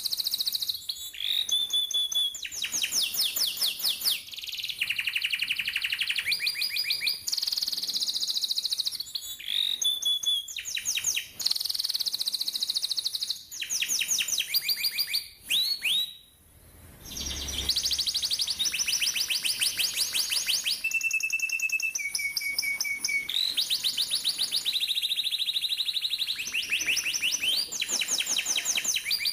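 Domestic canary singing a long training song of rapid rolled trills: fast runs of repeated notes that switch to a new phrase every second or two. The song breaks briefly a little past halfway.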